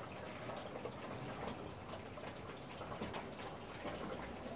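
Faint soft handling noises of hands coiling and pressing a sheet of dough into a spiral on a marble rolling board, over a steady low hiss.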